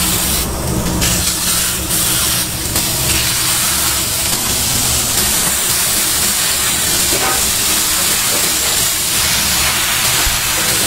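Raw burger patties sizzling on a hot oiled steel griddle: a steady hiss.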